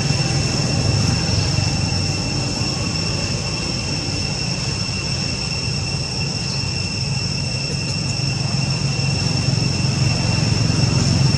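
Steady, high-pitched drone of insects in a single held tone, over a continuous low rumble.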